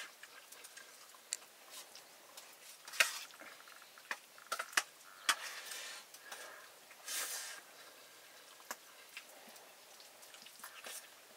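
Metal spoons clinking and scraping against steel plates during a meal, in irregular short clinks with a few longer scrapes.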